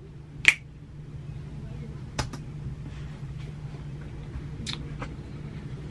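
Steady low hum with a few short, sharp clicks: one about half a second in, one about two seconds in, and two close together near the end.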